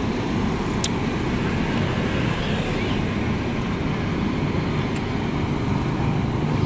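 Steady low rumble of road traffic and engines, with a motorcycle passing near the end.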